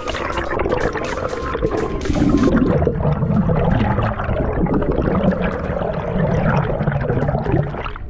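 Underwater rumble and gurgle of water and bubbles around a freediver's camera as he swims up toward the surface. The sound drops away near the end.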